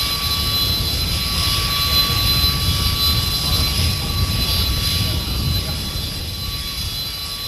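Panavia Tornado's RB199 turbofan jet engines running on the ground: a low rumble under steady high-pitched whines, easing slightly after about five seconds.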